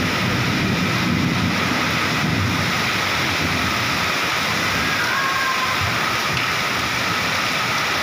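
Heavy tropical downpour in a windstorm: a steady, loud rush of rain, with some low rumbling in the first few seconds.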